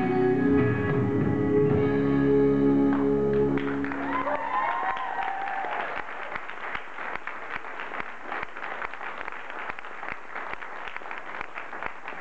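Music plays, then ends about four seconds in, and a small audience starts applauding.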